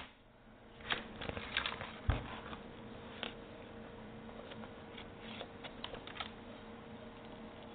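Irregular light taps, clicks and scrapes of a cat's paws and claws batting at a camera cord close to the microphone, with a heavier dull thump about two seconds in. A faint steady hum runs underneath.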